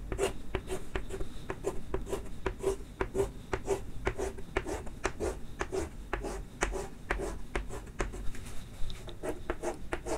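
Chalk scratching on a blackboard in quick, even, repeated strokes, about three or four a second, as short parallel hatching lines are drawn.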